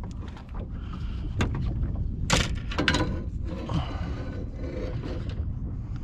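Wind rumbling on the microphone, with a few sharp clicks and scrapes from handling a hooked fish over a landing net. The loudest click comes about two seconds in.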